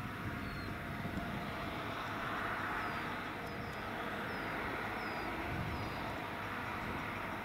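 Forage harvester chopping whole-crop cereal and blowing it into a trailer alongside, with the tractor running: a steady machinery drone that swells a little in the middle. Faint short high chirps sound above it now and then.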